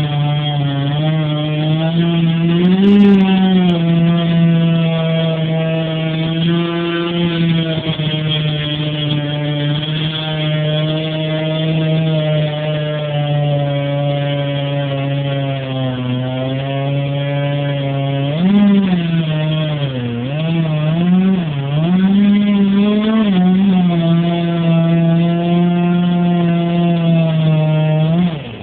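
Chainsaw running at high revs, a steady high motor note. In the second half its pitch sags and picks back up several times.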